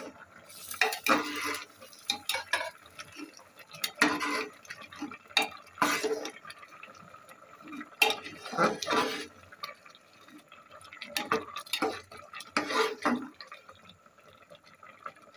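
A metal spatula stirring rice and bottle-gourd leaves in boiling starchy water in an aluminium pressure-cooker pot, scraping and clinking against the pot's sides and bottom at irregular intervals.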